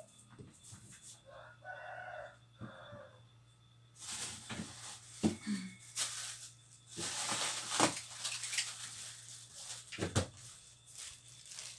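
A rooster crowing once, a faint call about two seconds in. From about four seconds on come rustling and knocks of things being handled.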